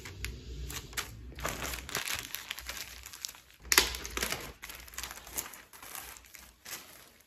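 A clear plastic packaging bag crinkling and rustling as it is handled and opened, in irregular bursts with the loudest crackles about four seconds in.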